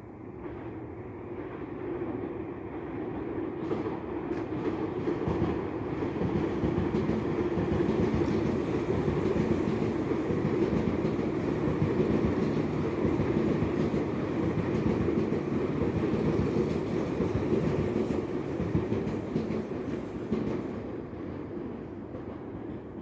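Tobu Tojo Line electric train passing by on the tracks, a rumble with wheel noise that builds over the first few seconds, holds steady through the middle, and fades away near the end.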